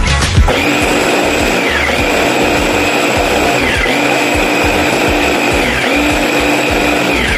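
Electric kitchen blender running, blending chopped pechay and celery. It starts about half a second in and runs steadily, its motor pitch dipping briefly and recovering three times, about every two seconds, then stops just before the end.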